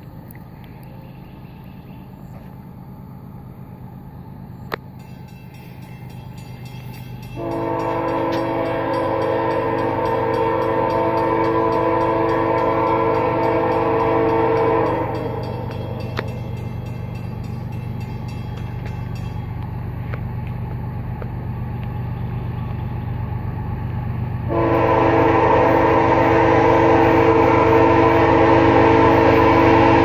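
Approaching freight locomotive's multi-chime air horn, a horn the title calls rare on this unit and CN-like in tone, sounding two long steady blasts: the first starts about a quarter of the way in and lasts about seven seconds, the second starts about four-fifths of the way in and runs to the end. A steady low hum lies underneath.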